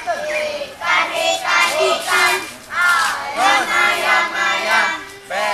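A group of children's voices chanting together in unison, in short loud phrases.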